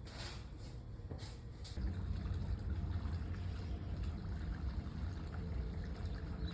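Water running and trickling, with a low rumble that grows louder about two seconds in.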